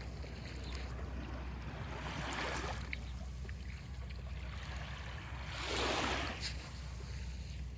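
Small waves washing gently onto a sandy shore in a calm bay, one swell of surf about two and a half seconds in and a louder one about six seconds in, over a steady low rumble.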